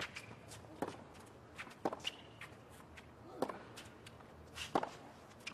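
Tennis rally on a hard court: sharp pops of the ball coming off the racket strings, about one every second and a half, with fainter knocks between.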